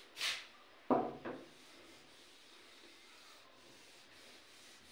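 Board duster rubbing marker writing off a whiteboard: a faint scrubbing. A short swish at the start and a sharp louder sound about a second in.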